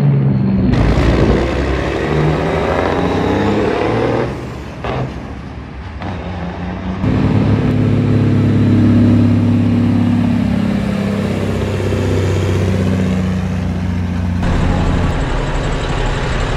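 Big-rig semi-truck diesel engines running and revving as the trucks move off and drive by. The engine pitch rises and falls early on, then holds steady, and the sound changes abruptly several times.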